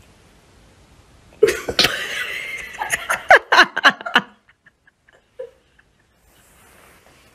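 A person laughing hard in bursts, breaking into a run of quick ha-ha pulses before stopping about four seconds in.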